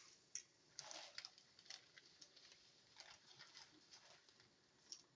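Dry spaghetti going into a pot, with faint scattered clicks and rustles as the sticks knock together.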